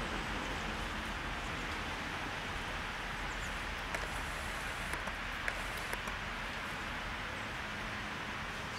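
Steady outdoor background hiss, with a few faint ticks between about four and six seconds in.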